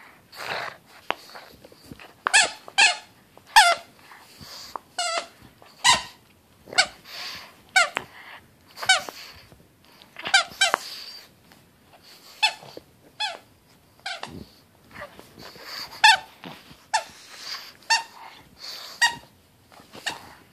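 Squeaker in a plush dog toy squeaking over and over as a pug bites and tugs on it: about twenty short, high squeals at an uneven pace, roughly one a second.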